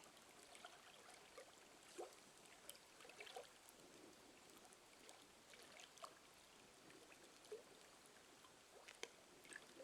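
Faint night ambience with a low hiss and scattered small clicks and pops, the sharpest crack about nine seconds in.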